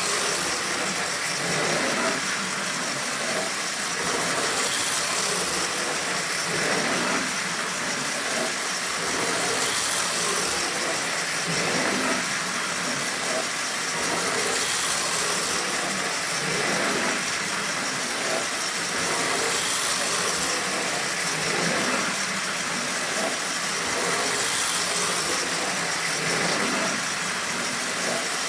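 Lionel No. 2065 4-6-4 toy steam locomotive pulling tank cars and a caboose around a small O27 track loop: a steady motor hum and wheel rattle on the three-rail track, swelling and easing in a regular cycle every few seconds.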